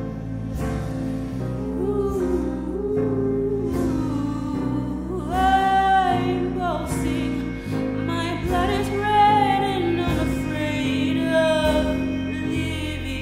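A song: a singer holds long, wavering notes over a steady sustained accompaniment.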